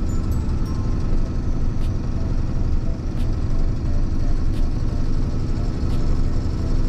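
Steady drone of a box truck's engine and tyre noise, heard inside the cab while driving.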